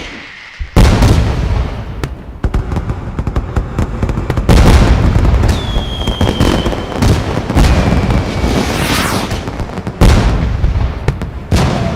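Fireworks display: a loud bang about a second in, then dense crackling and repeated booms of bursting shells. A whistling shell sounds in the middle, and more heavy bangs come near the end.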